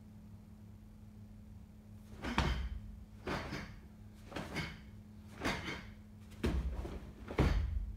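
Cotton karate gi snapping and swishing as a kata's blocks and punches are thrown, about once a second from about two seconds in. Soft thuds of bare feet stepping on carpet sit under the later strikes.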